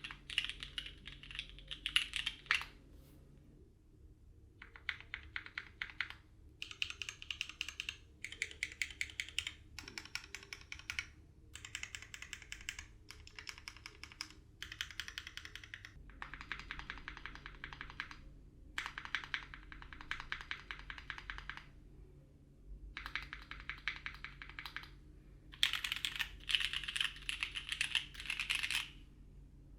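Typing on a custom 60% mechanical keyboard (Alas, O-ring mounted, POM half plate) with lubed Cherry Clear Top "New Nixie" switches and GMK keycaps: fast runs of keystrokes broken by short pauses, the loudest run near the end.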